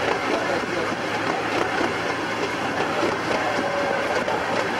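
Miniature railway train running along the track: a steady low engine hum, with the wheels clicking over the rails.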